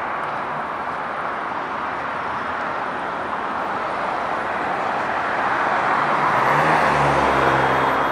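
Road traffic on a busy multi-lane city street: a steady rush of passing cars that grows louder in the second half. Near the end a nearby vehicle's engine hum comes through.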